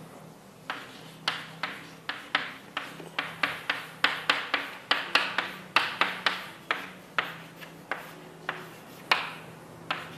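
Irregular series of sharp taps or clicks, about two to three a second, with a pause near the end before a last one, over a faint steady hum.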